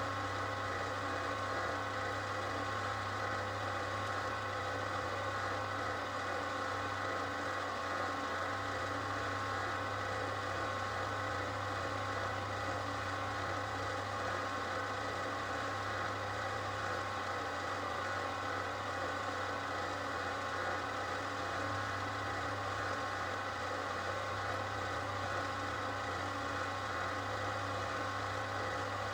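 Durst RCP20 paper processor running, a steady electric hum with a low mains-frequency drone and several high steady tones from its roller-drive motor.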